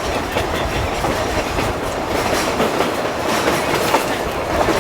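Narrow-gauge passenger train rolling along, heard from on board: a steady rumble of running gear with the wheels clicking over the rail joints.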